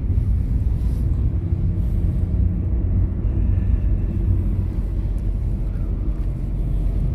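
Steady low rumble of a moving car heard from inside its cabin: engine and road noise while driving.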